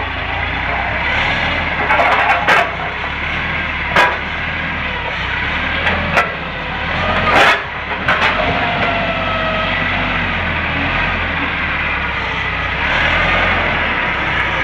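An LPG forklift engine runs steadily under load while the steel forks strike and scrape a steel grid frame. Several sharp metal clanks sound, the loudest about halfway through, and a brief squeal follows soon after.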